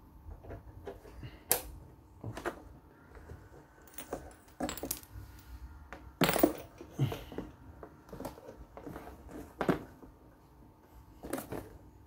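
Metal XLR plugs clicking and clattering against the sockets and metal rear panel of a DBX EQX-215+ rack graphic equalizer, then the equalizer's metal case knocking as it is turned over and set down. About ten separate sharp knocks, the loudest about six seconds in.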